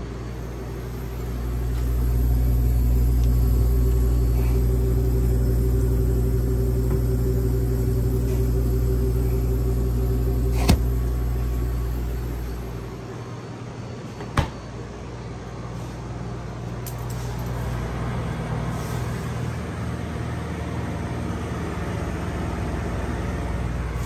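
Steady low hum of a True commercial refrigerator's running machinery. It swells early on, eases off about halfway through, and a softer, airier hum takes over toward the end. Two sharp clicks sound a few seconds apart in the middle.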